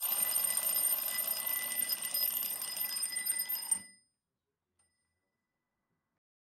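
A bell ringing continuously for nearly four seconds, then stopping suddenly with a brief fading ring.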